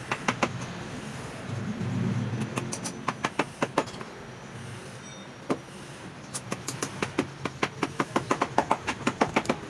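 Hammer driving nails through layered strips of tyre rubber: sharp taps in short groups, then a long quick run of strikes in the second half.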